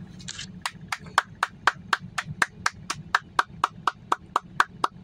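Rapid, even clicking, about four clicks a second, typical of a vehicle's turn-signal flasher, over a low steady hum, after a brief rustle right at the start.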